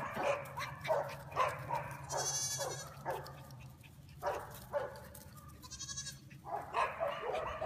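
A goat kid bleating and a small dog yapping in quick runs of short calls, with brief lulls about three and six seconds in.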